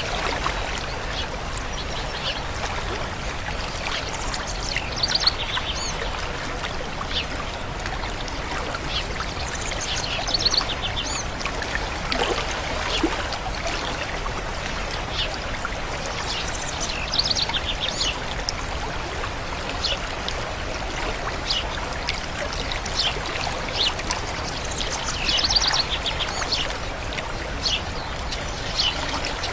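Steady flowing water of a stream with songbirds chirping over it; short trilled calls stand out now and then.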